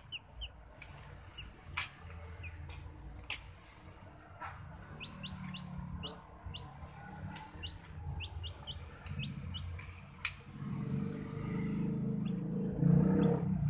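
Screw-type scissor car jack being worked by hand: a few sharp metal clicks as its crank rod is fitted and turned, with a run of short, high, bird-like chirps in the middle.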